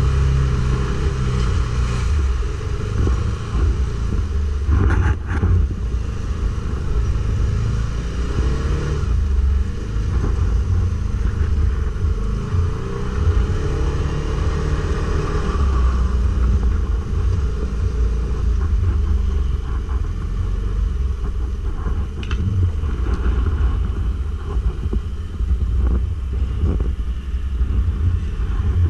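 Stels Guepard 850 ATV engine running under way over rough off-road ground, with a heavy low rumble throughout. There are brief knocks about five seconds in and again a little after twenty seconds.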